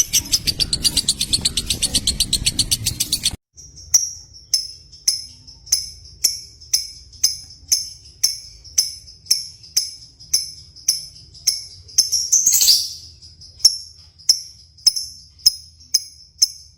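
Lovebirds chirping: a fast, dense run of chirps, then after an abrupt cut a bird repeating short, sharp high chirps evenly, about one and a half a second. One longer, louder call comes about two-thirds of the way through.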